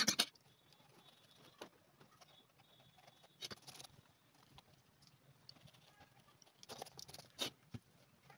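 A flat metal blade scraping crumbled old sole residue off the edge of a leather sandal, clearing it so the glue for a new sole will grip. Short scratchy strokes: a loud one at the very start, more bursts about three and a half and seven seconds in, with small ticks between.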